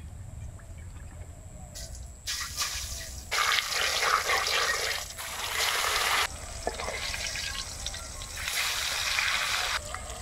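Turmeric-coated pieces of pangas fish sizzling as they fry in hot oil in a karahi, in stretches of a couple of seconds that start and stop suddenly. Before the sizzle, oil trickles faintly into the pan for about two seconds.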